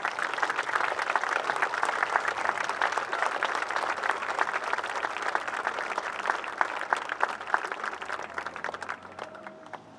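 Crowd applauding, a dense patter of many hands clapping that dies away near the end.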